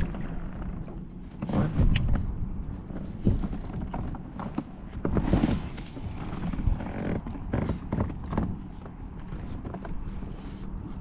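Irregular knocks and thumps aboard a fishing kayak, over a low rumble of wind on the microphone.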